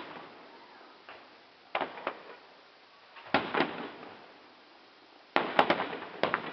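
Fireworks display: aerial shells bursting in three clusters of sharp bangs, each followed by a fading echo. The last cluster, near the end, is the loudest and has several reports close together.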